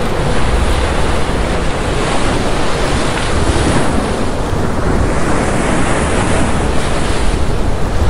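Ocean surf breaking and washing in: a continuous rushing with a low rumble underneath, swelling every few seconds as waves come in.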